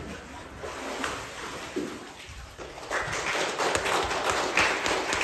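Water splashing in a baptismal pool as a person is dipped under and lifted out. About three seconds in, a congregation breaks into applause, the loudest part.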